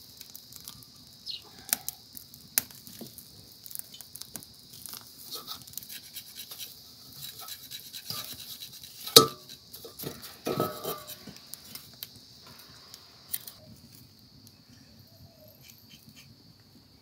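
A knife scraping singed hair and char off trotters for kale pache, in short scratchy strokes with small clicks and knocks against the bone and the metal bowl; the sharpest knock comes about nine seconds in. A steady high hiss sits underneath.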